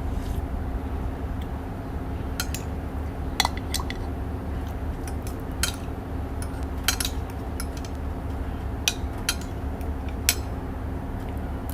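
Eating utensils clinking against dishware in a dozen or so sharp, irregularly spaced clicks, over a steady low hum.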